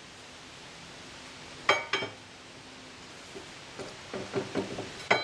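Hand tools clinking and knocking against metal on the engine while the starter bolts are worked loose. There are two sharp, ringing clinks close together, then a run of lighter knocks and taps, then another ringing clink near the end.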